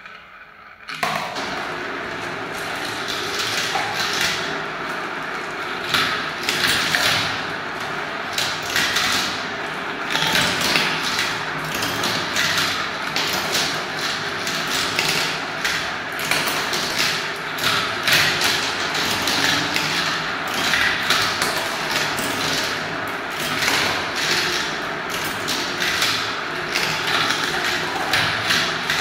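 Many small balls rolling around the clear plastic funnels of a marble run and dropping through its tubes: a continuous rattling roll with frequent clicks and clacks. It starts abruptly about a second in.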